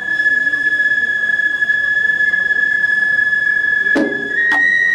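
A Japanese bamboo festival flute of the ohayashi band holds one long, steady high note that steps up a little near the end. Two short knocks sound about four seconds in.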